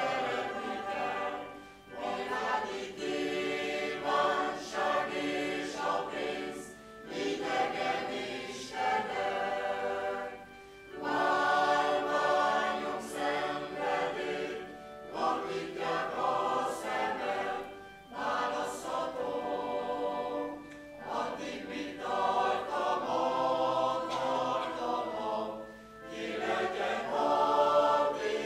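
Mixed choir of men's and women's voices singing, conducted, in phrases with short breaks between them.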